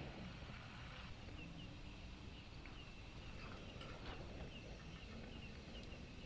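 A short, high chirp from a small creature repeating steadily about twice a second, over a low steady rumble.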